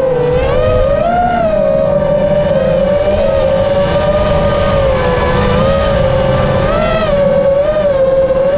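FPV freestyle quadcopter's brushless motors and propellers whining steadily, the pitch swelling up about a second in and again near the end as the throttle changes. Heard from the drone's onboard camera, with rushing air noise underneath.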